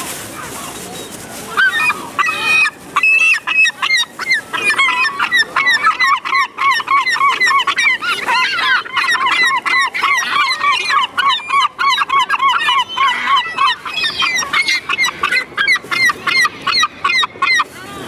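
Gull calling loudly in a rapid, unbroken series of short yelping notes, about four or five a second, starting a second or so in and keeping on without pause.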